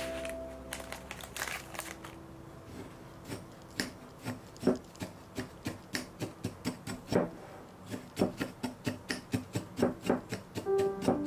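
A metal spoon crushing lumps of shiratamako (glutinous rice flour) in a glass bowl: a run of short scraping taps of the spoon against the glass and the granules, coming quicker, about two to three a second, in the second half.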